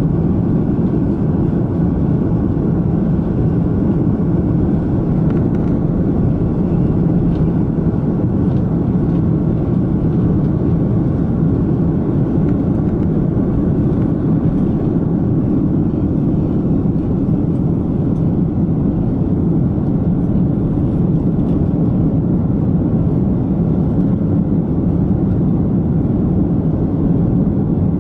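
Cabin noise of an Airbus A330-343's Rolls-Royce Trent 700 turbofans at takeoff thrust: a steady, loud roar through the takeoff roll and liftoff.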